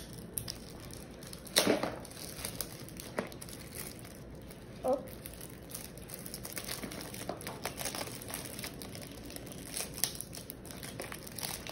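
Packaging of a boxed pre-built card deck crinkling and tearing as it is opened by hand, with scattered rustles and small handling clicks and one louder rustle about two seconds in.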